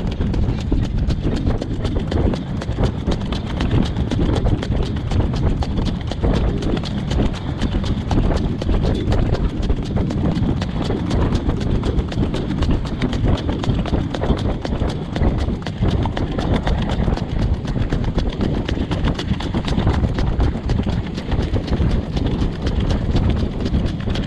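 Horse trotting at a brisk pace on a dirt road, hooves clip-clopping in a steady, even rhythm, heard from the sulky behind it. Wind rumbles heavily on the microphone.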